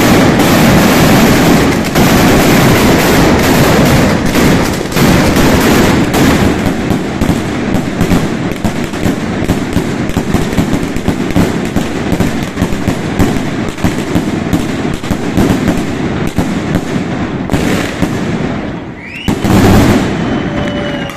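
Mascletà firecrackers going off in a dense, continuous barrage, heaviest in the first few seconds and then thinning, with aerial salutes bursting overhead. One last loud blast comes near the end, closing the display.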